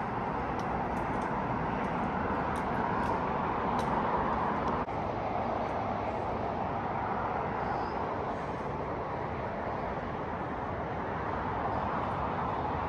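A steady rushing noise with no pitch, with faint small ticks now and then.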